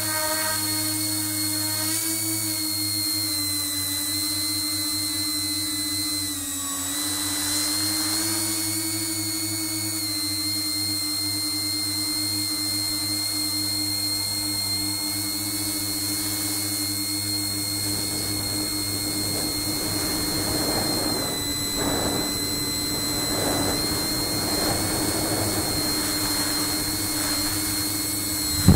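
Tricopter in flight: its three brushless motors spinning Graupner 9x5 tri-blade propellers, a steady whine whose pitch shifts slightly with throttle, dipping about six seconds in. In the last third a rushing noise comes and goes over the whine.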